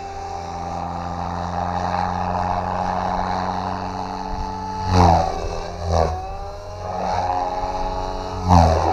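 Goblin 500 Sport electric RC helicopter in flight: the steady drone of its rotors with the whine of the motor and drive. Loud blade whooshes with sliding pitch come about five and six seconds in and again near the end as it manoeuvres.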